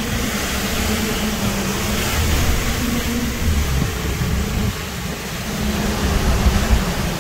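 Steady roar of hurricane wind and rain around a car, with the low hum of the vehicle's engine and road noise beneath.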